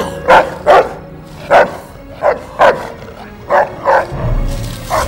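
Dog barking repeatedly, about eight short barks, mostly in quick pairs. A low steady rumble, likely background music, comes in about four seconds in.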